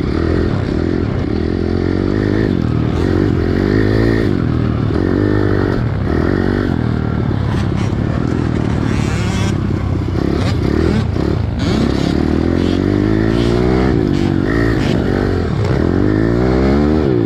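Pit bike engine under hard riding on a rough, muddy motocross track, its pitch rising and falling again and again as the throttle is worked and the gears change.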